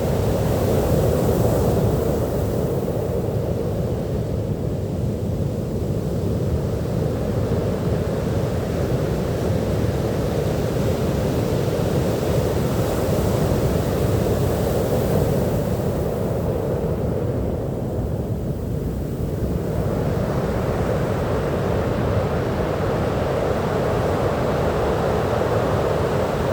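Ocean surf: a steady low rumble of waves, with the hiss of breaking waves swelling up now and then, near the start, around the middle and again toward the end.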